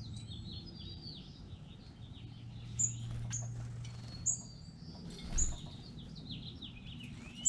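Several small songbirds chirping and calling, with short high notes and quick downward-sliding chirps overlapping one another. A low steady hum runs underneath, and there is a soft thump about five seconds in.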